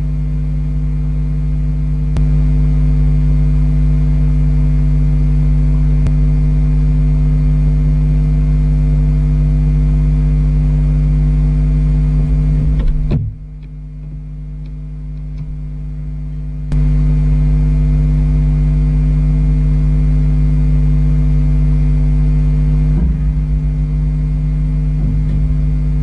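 Steady low hum made of several fixed tones, with no owl calls. For about three and a half seconds around the middle it suddenly becomes much quieter, then comes back at full strength.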